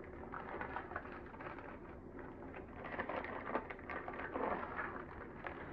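Parchment baking paper crinkling and rustling under the hands as it is rolled and folded tightly into a parcel: an irregular run of soft crackles, a little busier about three to four seconds in.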